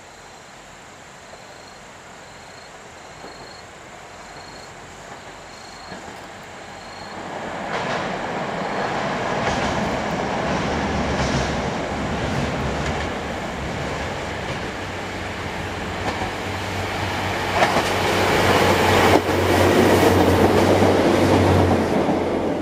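Two-car KTR700 diesel railcar set approaching and passing, its diesel engine running under power and growing steadily louder from about a quarter of the way in. Near the end it is at its loudest, with wheel knocks over the rail joints as the cars go by.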